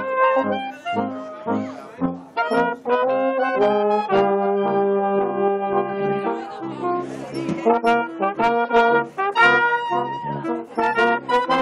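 Pep band's brass section playing loud, punchy short chords. About four seconds in it holds one long chord for around two seconds, then goes back to short hits.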